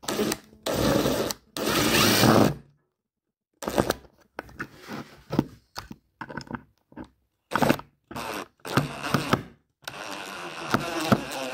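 DeWalt cordless driver running in short trigger bursts, driving a screw into a wooden board. Three longer runs come in the first two and a half seconds. After a pause of about a second, a string of brief bursts follows.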